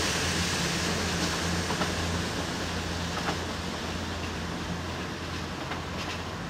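Class 222 Meridian diesel multiple unit moving away, its underfloor diesel engines a steady low hum that slowly fades, with a few faint clicks.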